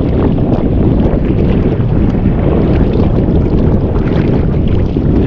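Loud, steady wind rumbling against the microphone on open water.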